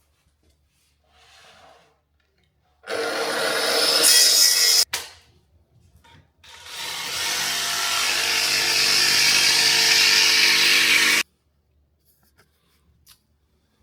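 Power saw cutting a piece of wood, run twice: a short cut of about two seconds, then a longer one of about four and a half seconds, each stopping abruptly when the motor is released.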